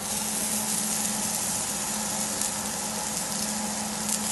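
Seasoned cobia pieces sizzling steadily on a hot ridged grill pan, over a steady low hum.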